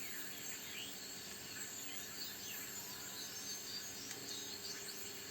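Direct conversion receiver tuned on the 40-metre band, its speaker giving a steady hiss of band noise with faint whistling tones that glide in pitch as the VFO is tuned across signals.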